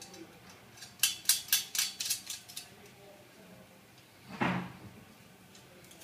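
Steel cable tray and its nuts and bolts being handled: a quick run of sharp metallic clicks, then one louder metal clatter about four and a half seconds in.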